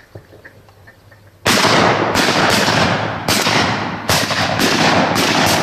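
A rapid volley of shotgun blasts from several guns: about nine shots in roughly four seconds, beginning about a second and a half in, each blast's echo running into the next.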